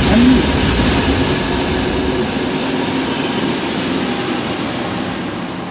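Flåm Railway train rolling past, with a steady high-pitched wheel squeal over the rolling noise, fading as it goes away.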